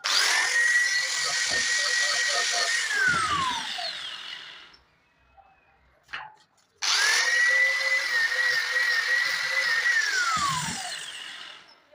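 An electric power tool's motor is run twice. Each time it starts sharply, whines at a steady pitch for about three seconds, then winds down with a falling whine as it is released.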